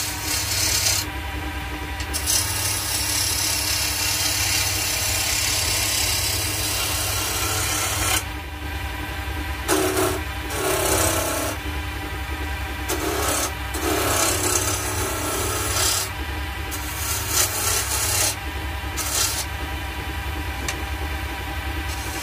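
A freshly sharpened bowl gouge cutting a spinning wooden spindle on a Draper wood lathe. It makes a rough hissing scrape that comes in passes of a few seconds, with short breaks between them, over the lathe motor's steady low hum.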